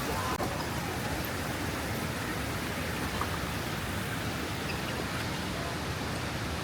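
Steady rushing of river water over waterfalls and cascades, an even, unbroken wash of noise.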